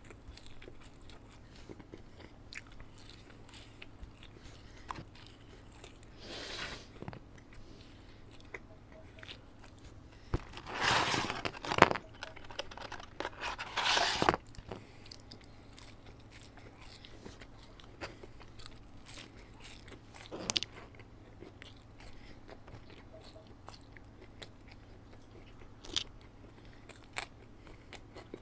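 Close-miked eating of McDonald's fast food: chewing and biting with small crunches and scattered mouth clicks. Two louder, longer noisy stretches come about a third and about halfway through.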